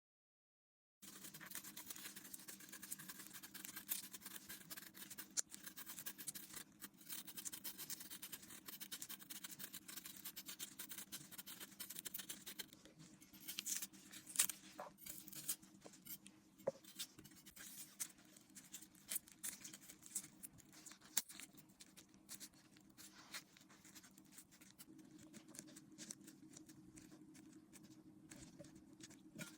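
Close-up kitchen preparation sounds: dense scratching and scraping for about the first twelve seconds, then scattered clicks and taps over a faint steady hum.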